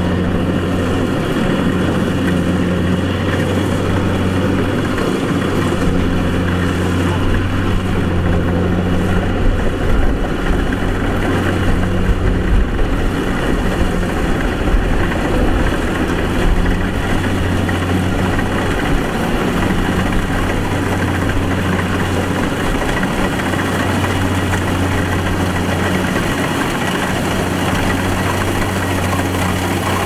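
Kubota rice combine harvester's diesel engine and threshing machinery running steadily as it cuts through the paddy, a continuous low hum that wavers a little partway through.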